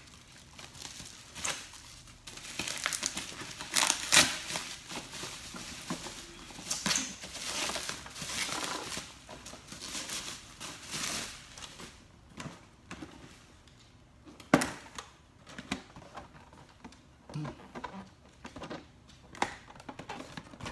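Bubble wrap and plastic packaging crinkling and rustling as a box is unwrapped by hand. In the second half this thins out to scattered taps and knocks of handling, with one sharper knock about two-thirds of the way through.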